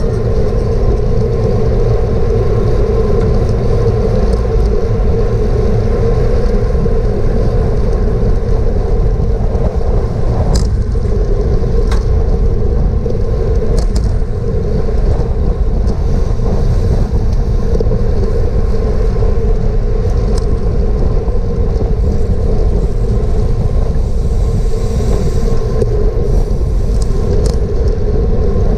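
Wind rushing over a GoPro camera on a bicycle ridden at racing speed, a steady loud rumble, with a few faint clicks.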